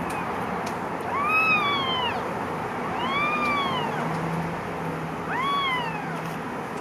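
Kitten meowing three times, each call about a second long, rising then falling in pitch, over steady background noise.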